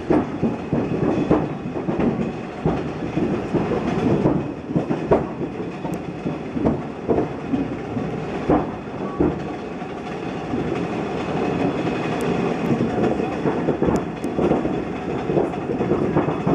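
Railroad equipment rolling slowly on track: a steady rumble with irregular clanks and clicks from the wheels and couplings.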